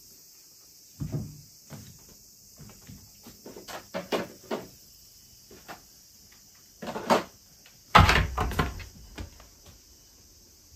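Irregular knocks, scrapes and bumps against a wooden panelled door, in small clusters, with the loudest, heaviest thud about eight seconds in.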